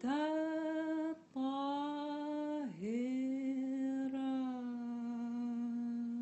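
A woman's voice, unaccompanied, holding three long notes, each a little lower than the one before. The last note is held steadily from about three seconds in, closing the chant.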